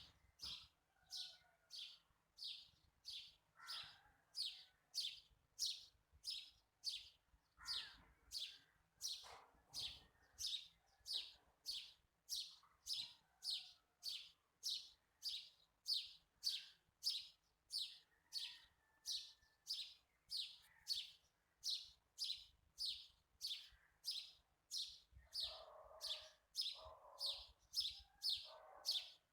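A bird chirping over and over, one short high chirp about every two-thirds of a second, with fainter lower sounds in the background that are stronger near the end.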